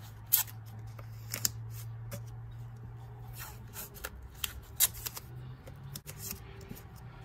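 Blue painter's tape being handled and pressed onto a blower motor's housing: crackly rustling with a few sharp clicks, over a steady low hum.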